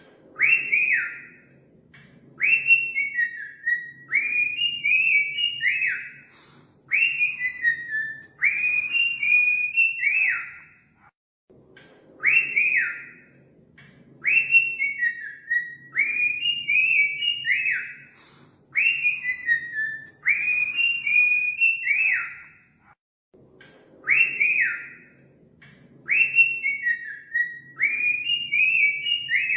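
Cockatiel whistling its song: short whistled phrases sliding up and down, one every second or two, repeated over and over with a couple of brief pauses.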